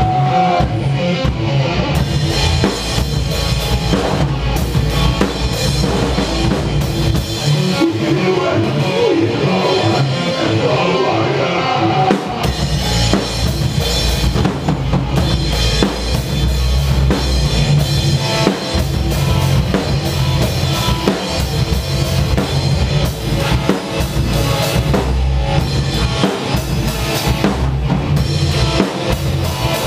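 Rock band playing an instrumental passage in a rehearsal room: a drum kit up close, with kick drum, snare and cymbals, over amplified electric guitars. The deepest low end drops away for a few seconds in the middle while drums and guitars carry on, then comes back about twelve seconds in.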